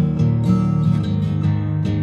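Acoustic guitar strumming chords, part of an instrumental passage of a song.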